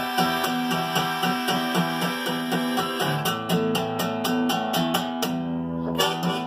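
Instrumental break: acoustic guitar strummed in a steady rhythm under a melody of held notes on a harmonica in a neck rack. The strumming pauses briefly a little after five seconds in while a note is held.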